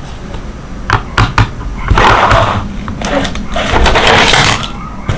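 Plastic packaging of a toy figure handled during unboxing: a few sharp clicks about a second in, then two longer spells of crinkling rustle.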